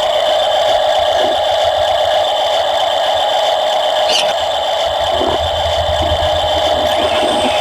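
RC construction machine running with a steady mechanical whine from its electric motors and gearing. A brief high squeak comes about four seconds in, and low rumbles follow in the second half.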